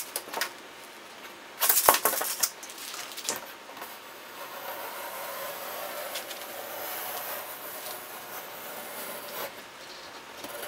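A tape measure clattering as it retracts, then a utility knife scoring a long straight cut through a Kerdi-Board foam panel, a steady scraping hiss lasting about six seconds.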